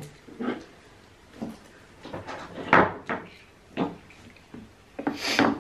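Hard objects knocked and set down, most likely crystal specimens being put down and picked up: a series of separate knocks and clunks, the loudest about three seconds in.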